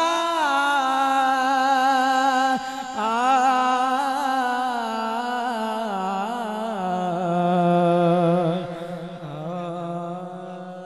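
A man's solo voice over a PA system, singing long, drawn-out wavering notes in two breaths with a short break about two and a half seconds in. The pitch slides gradually lower and the voice fades near the end.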